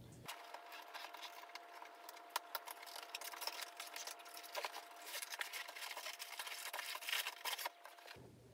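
Cardboard toy-blaster box being opened and unpacked: a fast run of rustling, scraping and small clicks of cardboard and paper, faint, with a thin steady hum behind it. It starts and cuts off abruptly.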